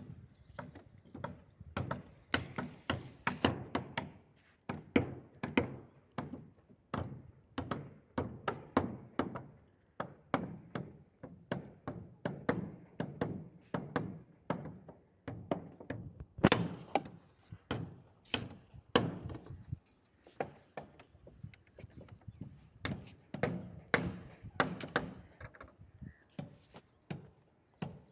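Repeated dull thudding blows of hand tools at work, coming in quick runs of a few strikes one after another, with short gaps between runs.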